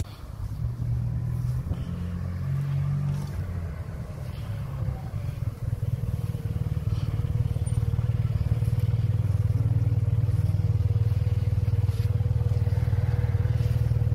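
Motor scooter engine running at idle, a steady low hum that gets louder about six seconds in, with a thin steady tone above it.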